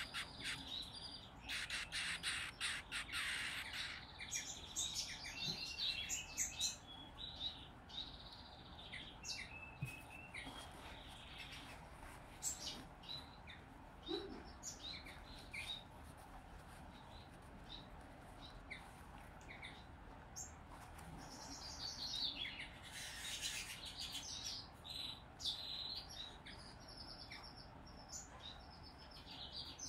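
A hand-fed zebra finch × owl finch hybrid chick giving high-pitched begging calls. There are rapid runs of chirps in the first few seconds and again about two-thirds of the way through, with scattered single chirps between.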